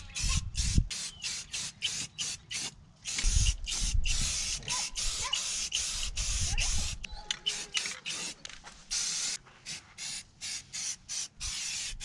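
Rust-Oleum camouflage aerosol spray paint can hissing in many quick short spurts, with a few longer sprays, as paint is sprayed onto the canoe's plastic hull. A low rumble comes in the first second and again from about three to five seconds in.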